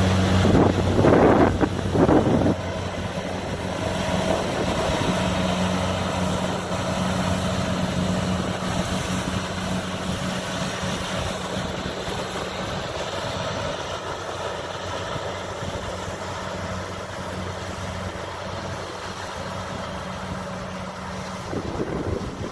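Kubota DC-70 combine harvester's diesel engine running steadily, with a louder stretch of machine noise in the first couple of seconds.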